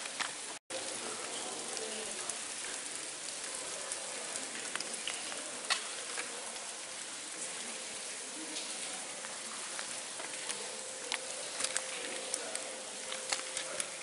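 Steady hiss of water dripping and trickling inside a wet volcanic cave, with scattered sharp drips and clicks. The sound cuts out briefly about half a second in.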